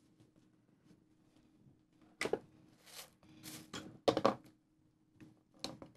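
Kitchen handling noise: a few sharp knocks and short rustles as a plastic mixing bowl is handled on a cutting board and a paper towel is crumpled, starting about two seconds in, over a faint steady hum.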